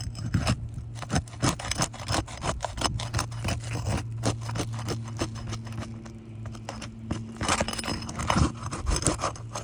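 A roof snake scraping and clicking against roof shingles as it works under them to test which are separating, a rapid irregular run of small scrapes and clicks over a steady low hum.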